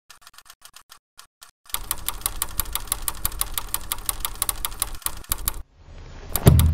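Rapid, evenly spaced mechanical clicking, sparse at first, then from about a second and a half in a denser clatter over a low steady hum. It stops shortly before the end, and a loud low boom swells up at the close.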